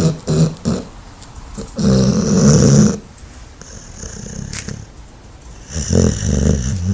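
A sleeping dog snoring: a few short snorting breaths at the start, a long loud snore about two seconds in, and another snore near the end.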